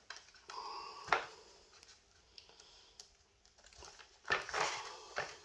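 Quiet handling noises: a sharp click about a second in, then a short stretch of rustling and knocking near the end.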